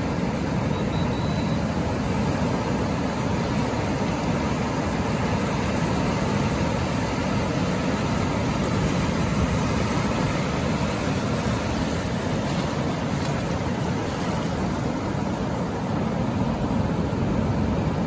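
Ocean surf: waves breaking and foamy water washing in over a rocky shore, a steady rushing noise with no pauses.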